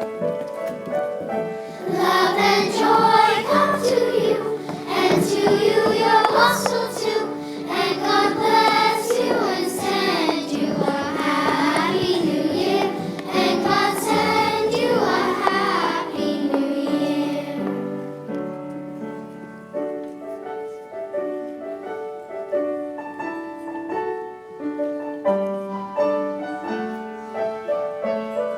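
Children's choir singing with instrumental accompaniment; the voices stop about halfway through, and the accompaniment carries on alone in held notes.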